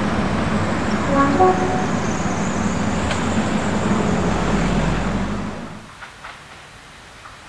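Diesel-hauled passenger train rumbling over a railway bridge, a steady low engine hum under the wheel noise, with a few brief horn-like tones about a second in. Near the end the sound drops to a much quieter distant train with light clicks.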